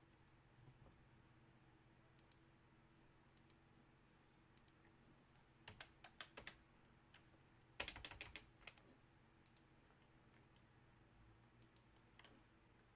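Near silence broken by short runs of computer-keyboard typing: a few keystrokes about six seconds in and a quicker run about eight seconds in.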